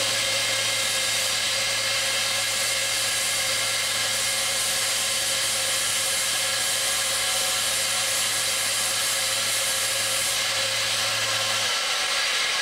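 Small electric bench belt sander running with a steady motor hum while steel is ground on the belt, a harsh continuous hiss. The grinding stops about ten seconds in and the motor cuts off shortly after.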